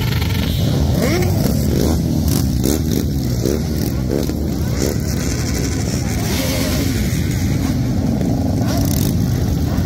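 A procession of motorcycles, a mix of cruisers and sport bikes, riding past at low speed. Engines run in a steady rumble with short revs rising and falling in pitch as bikes go by one after another.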